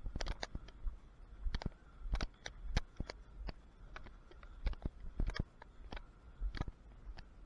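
Footsteps and rustling of a hunter walking through dry grass and weeds: irregular crackling clicks, a few a second, over a low rumble.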